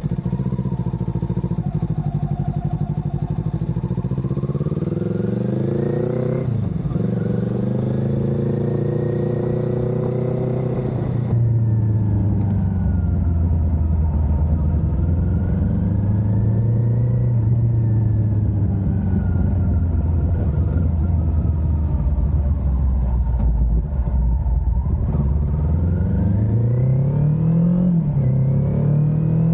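Kawasaki Ninja 400's parallel-twin engine under way, its pitch rising as the bike accelerates and dropping at each gear change, several times over. About eleven seconds in the sound abruptly turns louder and deeper.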